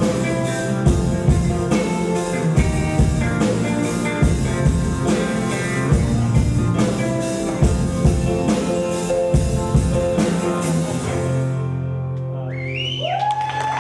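Live band music with a steady beat that ends on a long held low note about eleven seconds in. Near the end the audience begins to whoop.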